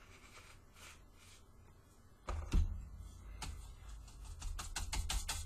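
A paintbrush dabbed and pounced on a paper plate to work off excess paint before dry brushing: a knock, then a run of light taps that come quicker toward the end, over a low rumble of handling on the table.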